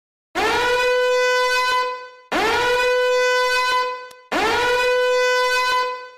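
The same horn blast sounds three times in a row, each lasting about two seconds: a single note that scoops up in pitch at the start and then holds steady. It is a meme sound effect clip played back to back.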